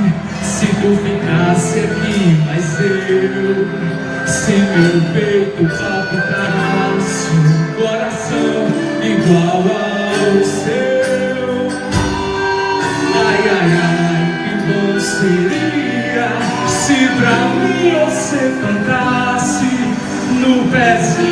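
Music with singing over a regular percussion beat, played loud throughout.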